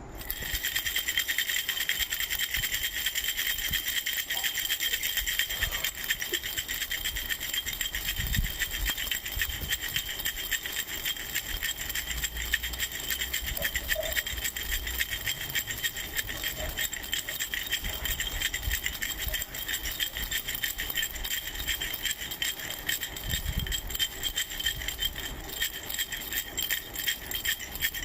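A baby's bracelet rattle being shaken, giving a fast, continuous rattling that keeps up without a break.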